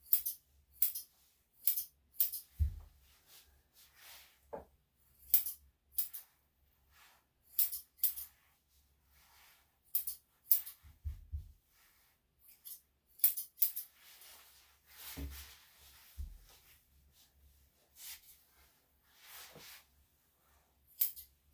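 Grooming shears snipping through a dog's fur: sharp, high-pitched snips, single or in quick pairs, coming every second or so with short pauses between. A few soft thumps fall among them.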